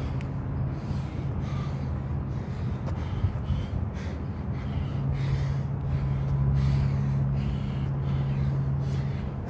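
A man breathing hard in short, repeated gasps and exhalations from the exertion of lunges, about one or two breaths a second. Under the breathing runs a steady low hum that grows louder about halfway through.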